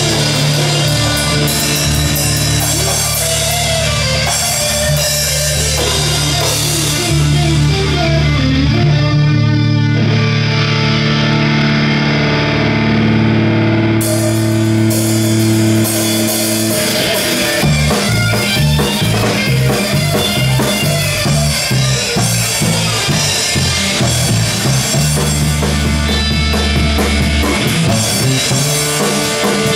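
Live rock band playing loudly: electric guitars, bass guitar and a drum kit. The cymbals and drums drop out for a few seconds about a third of the way in and crash back in near the middle, and the band then goes into a choppier, stop-start rhythm.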